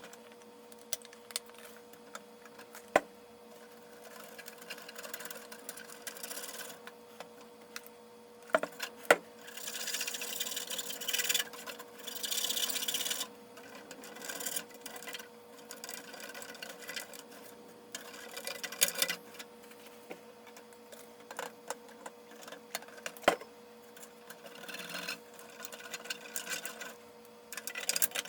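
Scraping and rubbing in short irregular spells as dried-up old stickers are worked off the plastic of a vintage toy with a plastic razor blade, with a few sharp clicks and taps over a faint steady hum.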